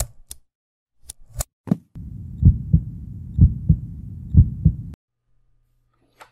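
Heartbeat logo-sting sound effect: a few sharp clicks and swishes, then a low drone under three double heartbeat thumps (lub-dub), which cuts off suddenly about five seconds in.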